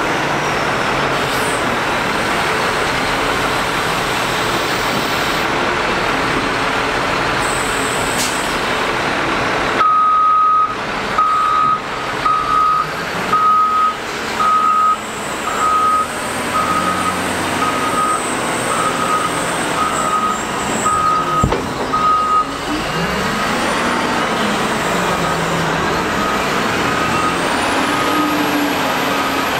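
Caterpillar 972M wheel loader's diesel engine running under load as it dumps a bucket of sand. About ten seconds in, a reversing alarm starts beeping a little more than once a second; it stops for a few seconds and comes back faintly near the end.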